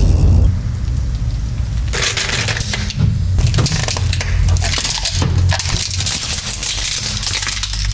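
Car tyre rolling over a plastic toy airplane and crushing it: a dense run of cracks and snaps of breaking plastic starting about two seconds in, over a steady low rumble.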